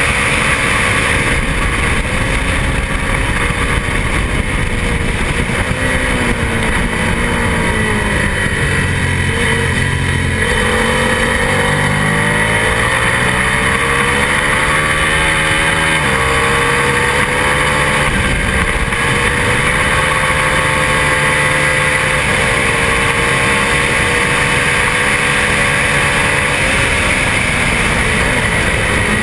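Twin-cylinder racing motorcycle engine at race pace, heard from the bike's own onboard camera with heavy wind rush. The revs fall about eight seconds in as it slows for a corner, climb again, drop sharply at an upshift about sixteen seconds in, then hold high.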